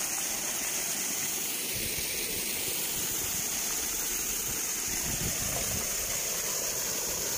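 Water gushing hard out of an outlet and pouring into a shallow channel: a steady, even rush of water.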